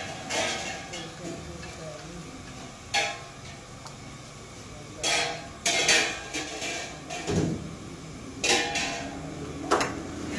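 Metal ladle clanking and scraping against a large steel cooking pot as chickpea stew is scooped out and poured into plastic bags: a handful of sharp clanks at irregular intervals.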